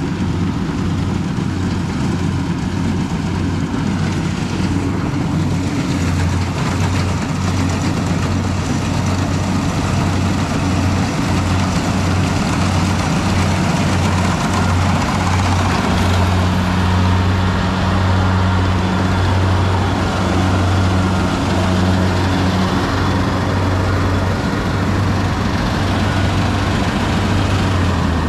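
Kubota crawler combine harvester running steadily as it cuts rice, a constant low engine hum with mechanical noise over it. It grows a little louder in the second half as the machine comes close.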